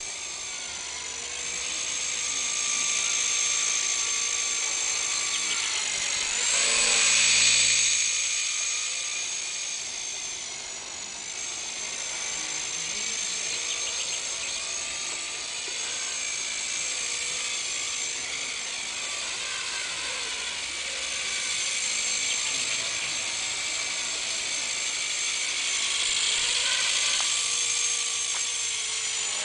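CB100 micro electric RC helicopter in flight: a continuous high-pitched whine from its motor and rotor, the pitch drifting up and down with the throttle. It gets louder about a quarter of the way in and again near the end.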